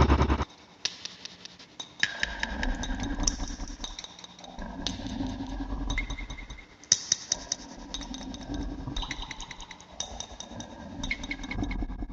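Made-up creature sound effect: rapid, irregular clicking and rattling over a low hum, with brief high ringing tones that come and go in stretches of a few seconds.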